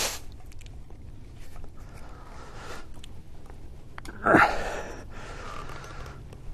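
A rubber hose stuck fast on its fitting, twisted and worked by hand: rubber squeaking and scraping against the fitting, with one louder, short burst of noise about four seconds in.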